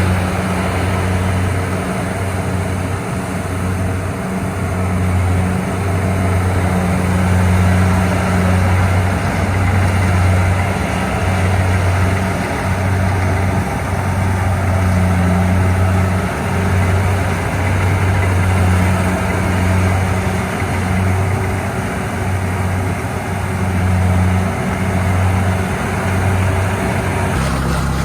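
A machine engine running steadily: a low drone that swells and dips every second or two over a broad mechanical noise. Its note changes near the end.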